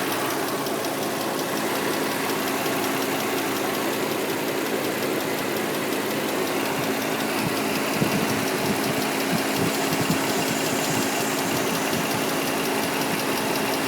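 2003 Nissan Murano's 3.5-litre V6 running at idle, with a rapid, even ticking over the steady engine hum. The ticking has only just started and its cause is not yet known.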